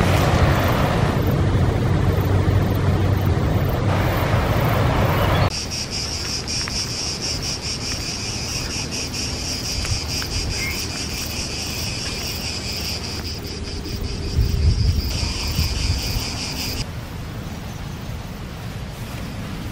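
A steady low rumble with a hum for about the first five seconds, then cicadas chirring in a pulsing, high-pitched chorus that cuts off abruptly near the end.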